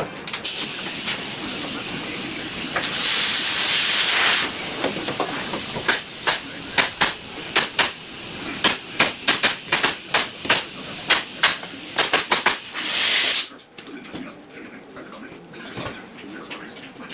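Pneumatic nail gun on an air hose firing a quick series of nails into wooden pallet siding, two or three shots a second, over a steady loud hiss of compressed air that cuts off suddenly near the end.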